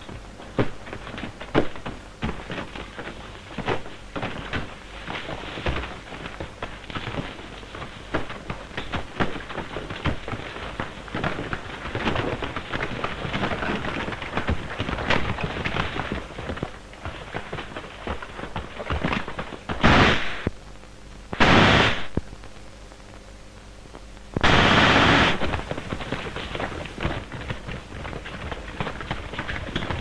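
Scattered gunfire: many sharp shots and cracks throughout, with three loud rushing bursts, each under a second, about two-thirds of the way through.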